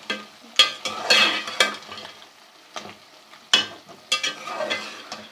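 A spoon stirring and scraping around a pot of fish heads being fried in oil with onion, spice and yogurt masala, with several sharp scrapes over a steady sizzle.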